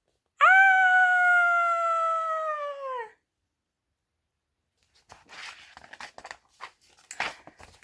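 A long, high, howl-like vocal sound held for nearly three seconds, sliding down in pitch at the end: a storyteller voicing the puppy's howl. Faint rustling and soft clicks follow near the end.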